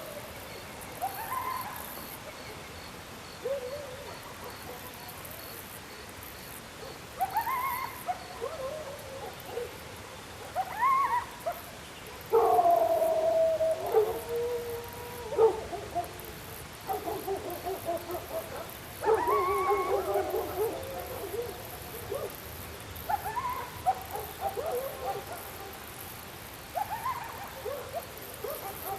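Dogs howling and yelping in a string of short rising calls, with a longer, louder stretch of howling about twelve seconds in and again near twenty seconds. A faint, even high ticking runs underneath through the first third.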